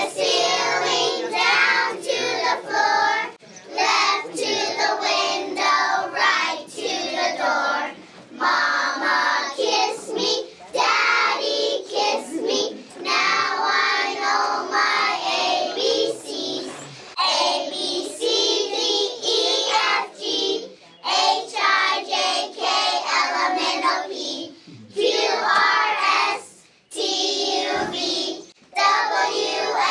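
A group of young children singing a song together, in phrases with short breaks between.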